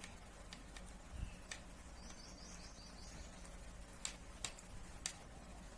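Faint scattered clicks of knitting needles as stitches are worked, with a brief high twitter of a bird about two seconds in, over a faint low hum.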